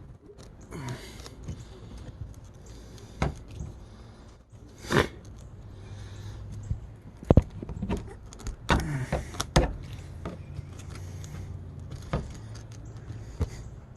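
Tire plug kit hand tool, the rasp-type reamer, worked into a tire puncture: irregular rasping scrapes and sharp metal clicks and knocks, loudest about two thirds of the way through, over a low steady hum.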